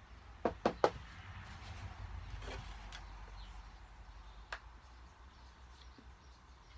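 Cornstarch being handled and measured out: three quick clicks, then a soft rustling hiss of the powder being scooped or poured for about two seconds, and one more click near the middle.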